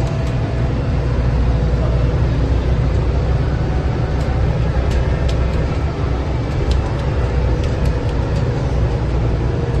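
Cabin noise inside a moving transit bus: steady engine drone and road rumble, with a faint steady whine and a few small clicks and rattles.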